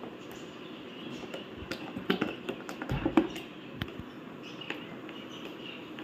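Hard plastic food storage containers being handled: a run of clicks, taps and knocks as lids and drain plates are pressed, lifted and set down, the loudest knocks about two and three seconds in.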